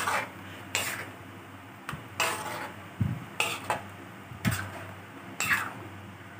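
Metal spatula scraping and clinking against a metal wok while stirring a thin coconut-milk curry, about eight strokes at roughly one a second, over a steady low hum.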